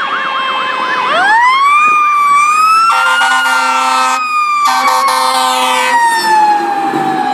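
Fire engine siren on an emergency run: a fast yelp that gives way about a second in to a wail that rises and then slowly falls, with two long blasts of the truck's air horn in the middle.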